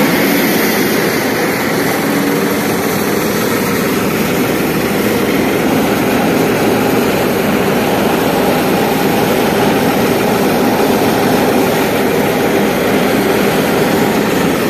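Farmtrac tractor's diesel engine running steadily at about 1,000 rpm.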